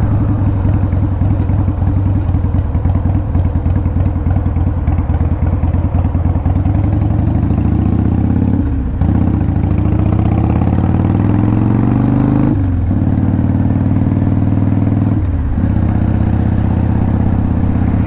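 Harley-Davidson V-twin motorcycle engine and exhaust under way, heard from the rider's seat. Past the middle it rises in pitch as the bike accelerates, with short dips at gear changes, about three in all, before settling to a steady cruise.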